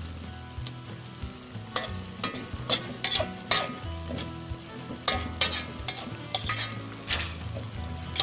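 A metal spatula scraping and clanking against a metal wok as leucaena shoots are stir-fried, over a steady sizzle from the wet pan. The scrapes come in quick, irregular strokes from about two seconds in.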